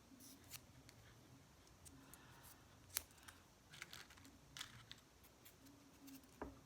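Faint, scattered light clicks and taps of small plastic press-on nail tips being picked up, handled and set down, about half a dozen over several seconds.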